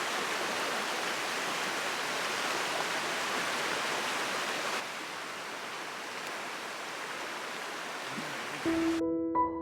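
Steady rush of falling water from a waterfall, dropping slightly in level about five seconds in. Soft piano notes come in near the end.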